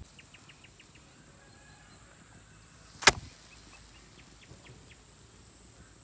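Quiet outdoor ambience with a steady high insect whine and a few short, high chirps, broken by one sharp knock about three seconds in.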